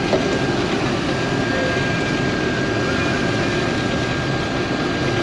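International Harvester Axial-Flow combine running steadily while harvesting wheat: a loud, even machine din with a thin steady whine above it.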